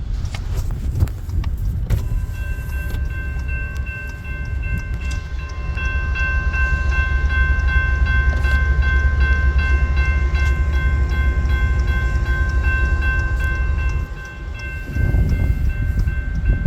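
A train moving close by: a heavy low rumble with a steady high whine held over it for most of the time. The rumble eases off briefly near the end, then comes back.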